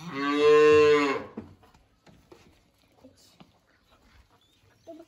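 A calf moos once, a long, steady call of about a second and a half at the start; afterwards only faint knocks and rustling.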